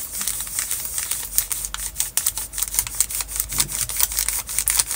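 Mini craft iron rubbed in circles over the plastic carrier film of an iron-on transfer, making a dense, irregular run of small scratchy ticks and crinkles.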